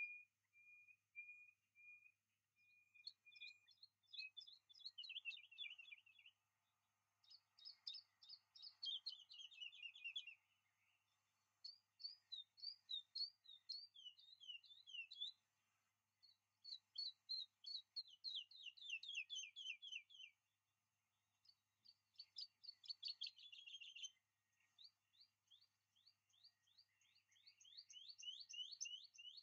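A songbird singing faintly. It opens with a string of short, even pips, then sings phrases of rapid repeated chirps and falling trills, a few seconds each, with short pauses between them.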